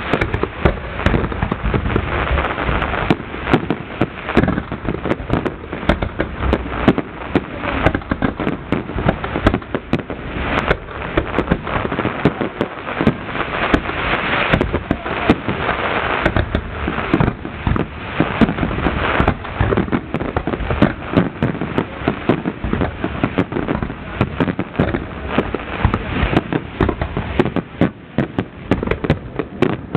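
Fireworks display: a continuous barrage of rapid bangs and crackles, with no pause.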